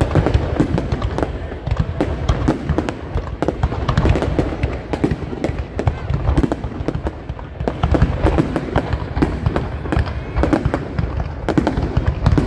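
Aerial fireworks display going off continuously: a rapid, dense run of bangs and crackling pops with no pause.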